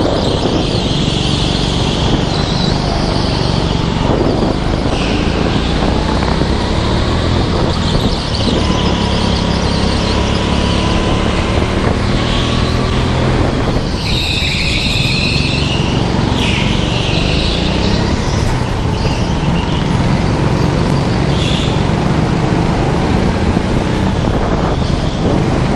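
Onboard a go-kart at racing speed: the kart's motor running hard under a constant rush of noise, with the tyres squealing in bursts through the corners, loudest about fourteen seconds in.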